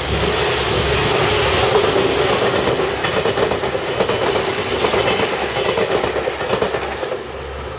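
JR Kyushu 813 series electric multiple unit passing close at speed, its wheels clattering over the rail joints as the cars go by. The noise drops away about seven seconds in as the last car clears.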